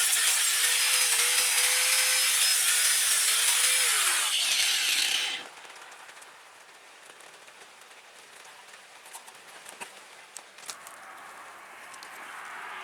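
A power tool runs with a loud, dense hiss as it works the metal of a WWII German folding shovel during restoration; its motor tone wavers and sags under load. It cuts off abruptly about five seconds in, followed by a few light clicks and handling sounds.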